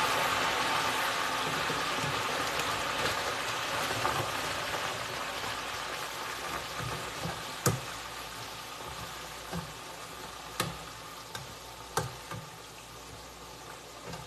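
Waffle fries deep-frying in a pot of hot oil: loud bubbling and hissing that dies down steadily as the oil settles. Three sharp metal clinks in the second half, from the wire spider skimmer against the pot.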